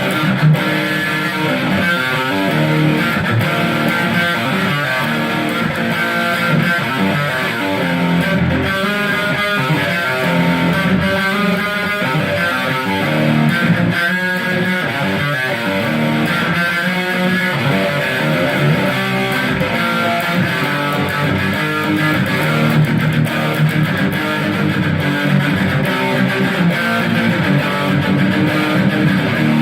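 Electric guitar fitted with custom Dialtone high-output pickups, played through high gain: chugging riffs and chords, every note and chord heard distinctly.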